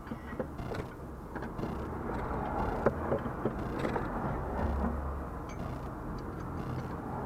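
2008 Ford Mondeo Mk4 on the move, with a low road rumble and scattered knocks and clicks from the front suspension, the sharpest about three seconds in: the suspension noise the car makes over speed bumps.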